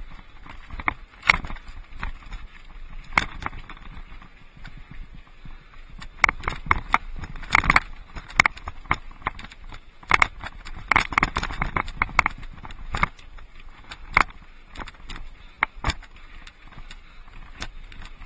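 Mountain bike rattling over a rocky desert trail: irregular clatter and sharp knocks as the tyres and frame hit loose rock, over a steady rolling noise.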